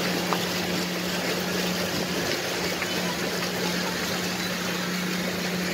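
Motorboat engine running steadily while under way: a constant hum over an even hiss of water and wind.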